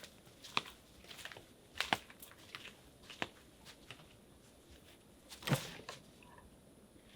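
Irregular light clicks and knocks, a dozen or so scattered over several seconds, with one louder knock near the end.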